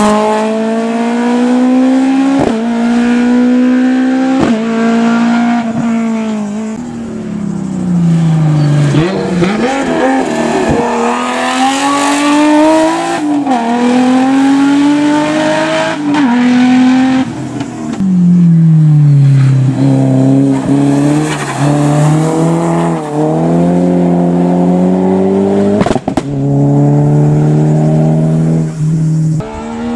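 Hillclimb race car engine under hard acceleration, its pitch climbing through the gears and dropping sharply at each upshift, then falling away in long slides as the car slows for corners. A few sharp cracks are heard at the shifts.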